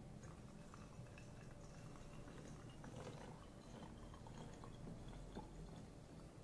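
Faint trickle of isopropyl alcohol being poured from a plastic bottle into another bottle, with a few small ticks.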